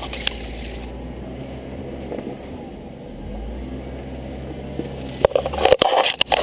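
Off-road vehicle's engine running at low speed, with a burst of loud knocks and crackling about five seconds in.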